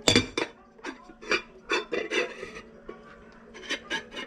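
A utensil scraping against a dish in a run of short, irregular strokes, with a sharp knock at the start.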